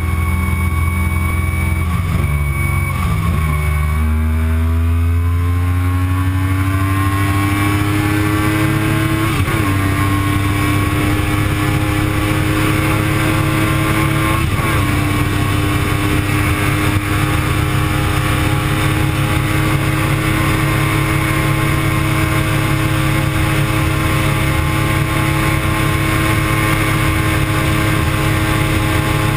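Yamaha R1 inline-four engine at full throttle, its pitch dipping briefly near the start and then climbing steadily as the bike accelerates, with two brief blips along the way, before holding one high, steady note at its top speed of about 300 km/h. Heavy wind rush runs underneath.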